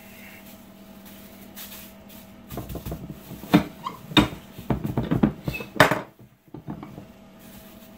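Metal tortilla press being closed on a ball of masa, its lever handle clanking down over plastic sheeting that crinkles, heard as a cluster of sharp clacks and rustles across the middle few seconds. A steady low hum runs beneath.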